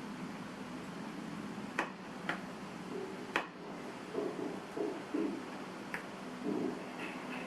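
A few sharp, separate clicks and taps over a steady hiss, with some short muffled knocks in between: small hard parts of a laptop being handled during disassembly.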